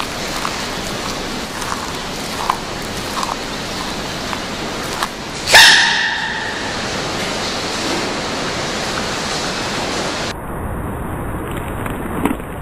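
A giant panda sneezes once, suddenly and loudly, about five and a half seconds in, with a short squeaky ring that fades over half a second. A steady hiss runs underneath, with a few faint small clicks before the sneeze.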